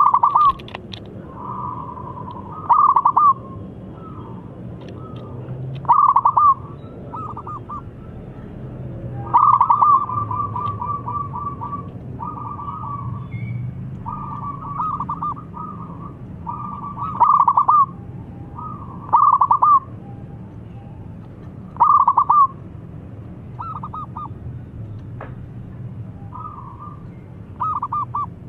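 Caged zebra dove (perkutut) singing: repeated phrases of rapid, staccato cooing notes, with a louder phrase every few seconds.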